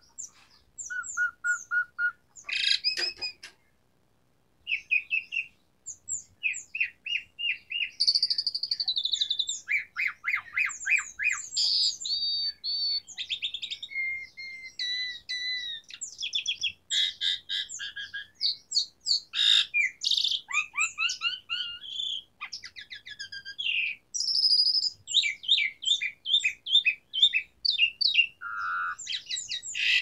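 Pied starling (jalak suren) singing vigorously: a long, varied song of rapid repeated whistled notes, chirps, glides and trills, with a short break about four seconds in.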